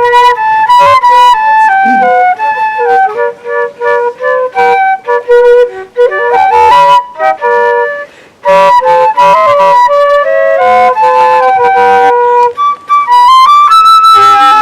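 Solo flute playing a carol melody, one note after another, with a brief break for breath about 8 seconds in.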